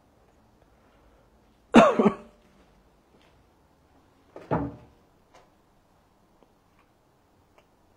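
A person coughs twice, the first cough louder, then a shorter second one a few seconds later.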